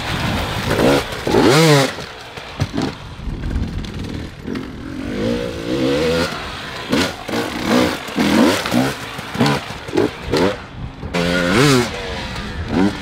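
Dirt bike engine revving hard and easing off again and again as it is ridden, its pitch sweeping up and down in quick rises and falls as the throttle is opened and closed.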